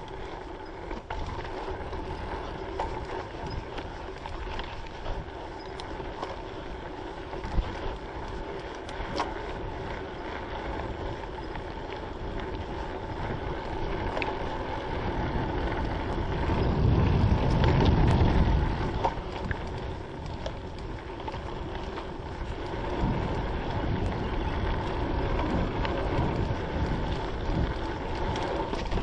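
Strong Frames Custom Blend mountain bike riding a dirt trail: a steady rattle and tyre noise with scattered clicks and knocks, and wind on the microphone. A louder low rumble builds about 16 seconds in and eases off about three seconds later.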